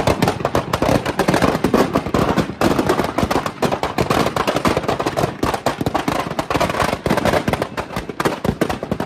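Firecrackers in a burning Ravana effigy going off in a dense, rapid string of sharp bangs and crackles, many a second, with no let-up.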